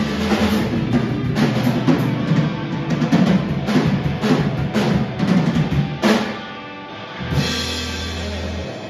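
Live rock band of drum kit and electric guitars playing a song's ending: about six seconds of repeated drum hits and crashes over the guitars, then a held low chord ringing out that cuts off shortly before the end.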